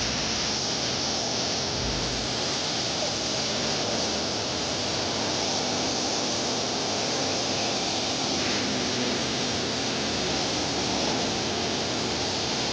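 Water rushing steadily from the spring's falls or channels, an even hiss-like noise with no breaks.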